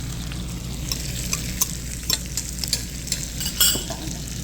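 Serving utensils clicking and scraping against plates and food containers while food is dished out, several sharp clicks over a steady background hum.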